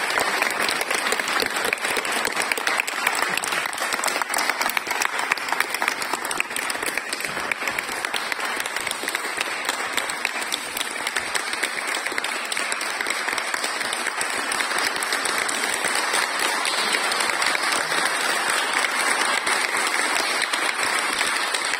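Audience applauding steadily, a dense continuous patter of many hands clapping.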